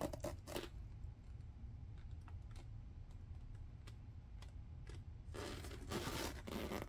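Gloved hands handling and turning a cardboard box: scattered light taps and clicks, then a longer rustling scrape of glove on cardboard about five seconds in.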